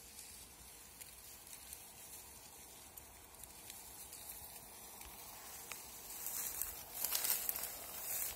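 Dry grass and brush rustling and crackling, faint at first and louder and denser over the last two seconds.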